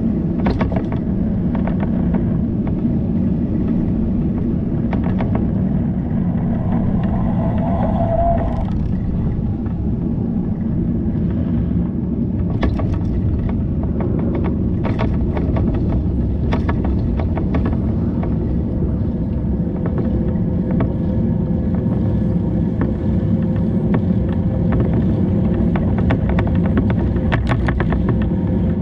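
Steady low wind-and-road rumble from riding a bicycle, with frequent small clicks and rattles. A short wavering tone comes in about seven seconds in.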